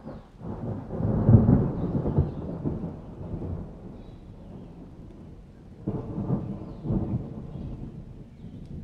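Thunder rumbling in two rolls, the first and loudest about a second in, another about six seconds in, over steady rain.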